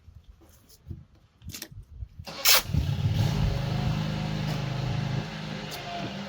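A few faint handling clicks. About two and a half seconds in, a click as an electric polisher switches on; it then runs steadily at its slowest speed with a steady motor hum, which eases slightly about five seconds in.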